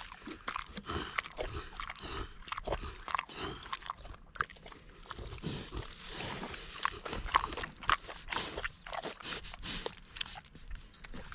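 Kune Kune pig chewing bananas, with irregular wet crunching and smacking bites.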